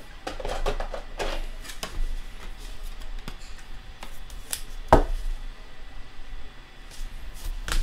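Trading card being slid into a clear rigid plastic card holder, with scattered light plastic clicks and taps and one sharp click about five seconds in as the holder closes.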